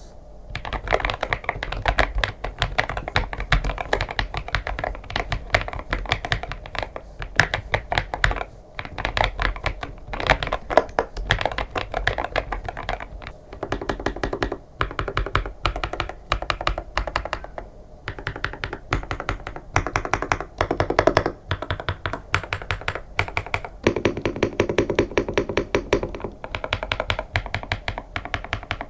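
Typing test on a Feker Vter K75 mechanical keyboard: rapid, continuous keystrokes on a gasket-mounted board packed with foam dampening, giving a muffled, thocky key sound.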